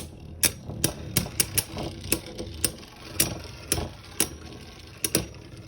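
Irregular sharp clicks and clacks of hard plastic Beyblade tops and parts being handled, about a dozen over a few seconds.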